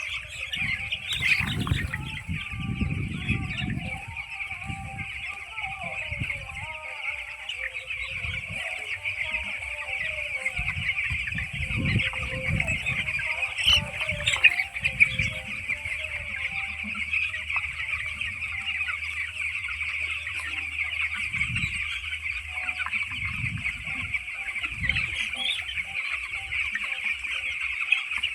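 A flock of 11-day-old broiler chicks peeping together in a dense, continuous chorus, with irregular low rumbles underneath that are strongest in the first few seconds.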